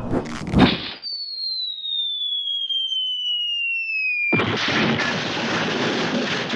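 Cartoon sound effects: after a few short hits, a falling-bomb whistle glides steadily down in pitch for about three seconds. About four seconds in it is cut off by an explosion that keeps rumbling.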